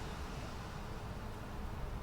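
Steady low rumble of distant road traffic, with a faint even hiss above it.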